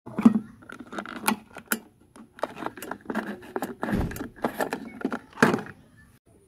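Car fuel filler flap being opened and the fuel cap unscrewed by hand: a string of irregular clicks, taps and rattles that stops shortly before the end.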